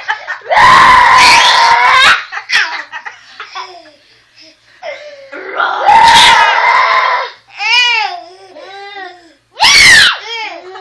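A young boy screams loudly three times, and between the screams a baby breaks into repeated belly laughs.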